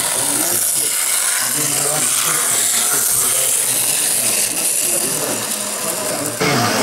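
Small electric motor of a model train whirring as the locomotive runs along the track, over the murmur of people talking.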